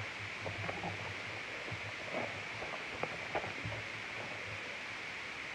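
Steady hiss of the live stream's microphone background noise, with a few faint taps and soft low bumps.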